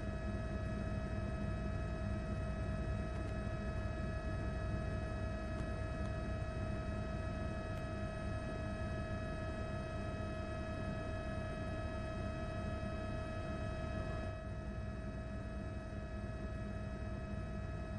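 A steady electrical hum and high whine over a low rumble and hiss. The main whine drops out about fourteen seconds in.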